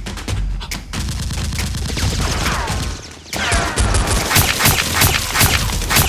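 Rapid bursts of gunfire sound effects, many shots in quick succession. They ease off briefly about three seconds in, then return louder, with a few short falling whistles among the shots.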